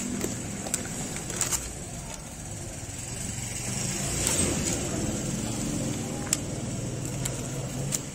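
A motor vehicle's engine running, a steady low hum that swells about four seconds in, with a few sharp clicks scattered through it.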